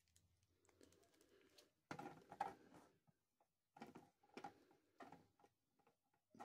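Faint clicks and rustles of a plastic action figure and its accessories being handled and posed, in two short bursts a couple of seconds apart.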